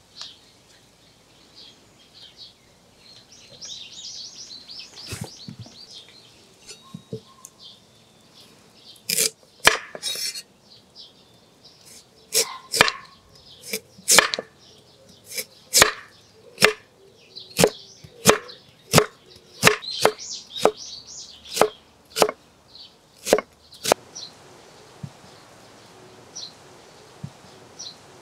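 Chef's knife slicing a carrot on a wooden cutting board: a run of about twenty sharp chops, roughly one every half to one second, starting about a third of the way in and stopping well before the end.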